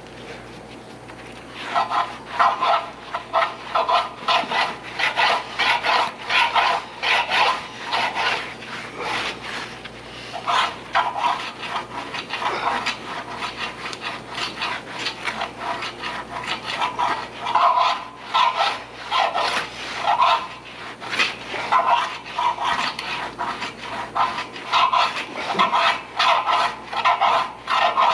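Repeated hand scraping strokes over the steel of a bulldozer blade, in runs of roughly two a second with short pauses: body filler being spread and worked with a spreader.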